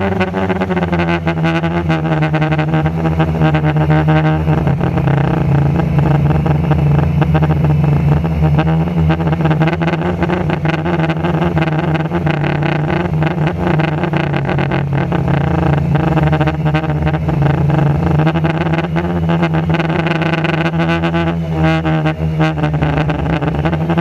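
A 450-size quadcopter's four electric motors and propellers buzzing in flight, heard close from the on-board camera. The hum shifts in pitch with the throttle, most clearly about four seconds in and again near the end, with wind buffeting on the microphone.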